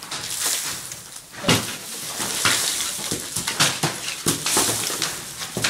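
A long-handled tool scraping against a ceiling, a rough hissing scrape broken by sharp knocks at irregular intervals about every second.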